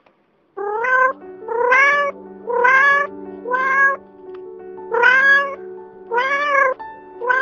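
A cat meowing over and over, about once a second, each meow rising and then falling slightly in pitch, over soft background music with long held notes.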